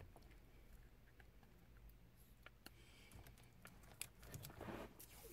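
Near silence with a few faint clicks and rustles of hands handling wires and plastic harness connectors.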